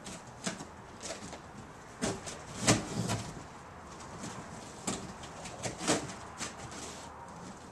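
Razor blade cutting through a corrugated cardboard box: short, irregular scratchy slicing strokes, with a few sharper scrapes a second or two apart.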